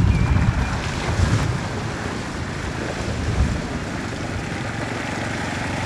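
Wind buffeting the microphone outdoors, a steady rushing noise heavy in the lows, with an ATV driving across the field mixed in beneath it. It cuts off abruptly at the end.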